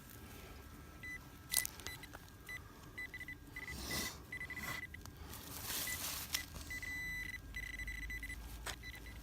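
Handheld metal-detecting pinpointer beeping in a single high tone, in short pulses and longer runs as it is worked over a target in the ground. Scrapes and sharp knocks of digging in soil come in between.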